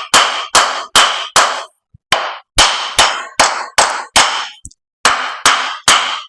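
Hammer blows ringing on metal, about two and a half a second in three runs of about four with short pauses between, knocking a cylinder liner loose from the engine block.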